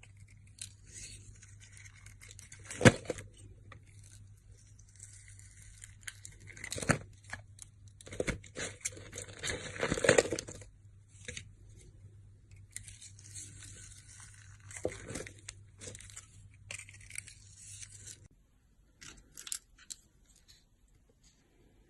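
Dry crackling and tearing noises with several louder, sharp crunches. They stop abruptly near the end, leaving only a few faint clicks.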